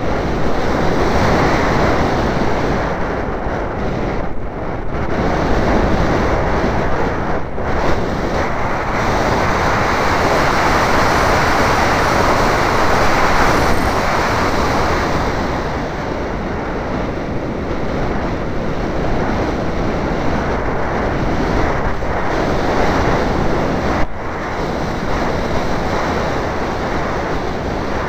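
Wind rushing over the microphone of a camera mounted on a Wild Hawk RC model plane in flight: a loud, steady rush that swells and eases as the plane banks and turns.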